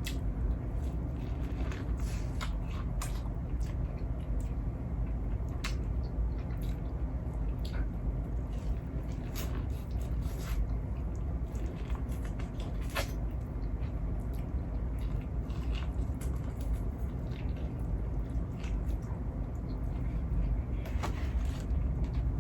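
Eating seafood close to the microphone: scattered wet squishes and small clicks of chewing and handling food, over a steady low hum.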